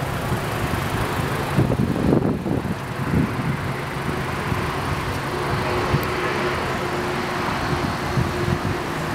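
Outdoor background noise with wind buffeting the microphone in irregular gusts, then a faint steady hum from about three seconds in.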